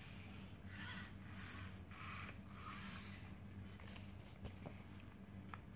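Robi humanoid robot's small servo motors whirring faintly in about four short bursts over a couple of seconds as it turns its body and head, followed by a couple of light ticks.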